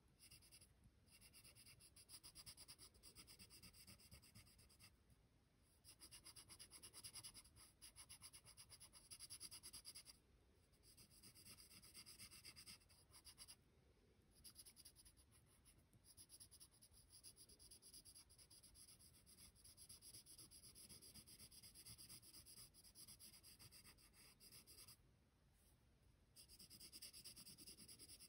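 Graphite pencil faintly scratching on paper in quick back-and-forth shading strokes, stopping briefly a few times.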